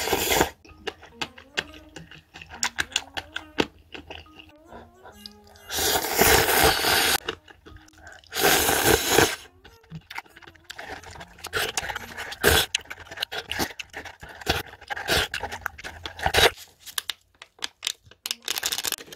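A person slurping spicy instant cup ramen noodles and broth: three long, loud slurps in the first half, then a run of clicky chewing and sipping noises. A light, bouncy background tune plays underneath.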